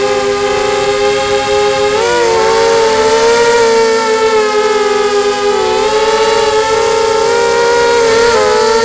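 The four brushless motors of a QAV250 FPV racing quadcopter (2204 size, 2300Kv) spinning 5x3 propellers, a loud steady multi-tone whine. The pitches slide up and down as the throttle and turns change, most clearly about two seconds in, again around six seconds and near the end.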